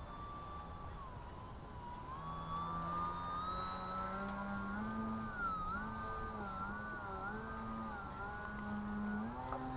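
Small electric RC plane's brushless outrunner motor (Sunnysky 1800kv) and 8x4.3 propeller whining, the pitch climbing about two seconds in, then dipping and rising over and over as the throttle is worked, and climbing again near the end.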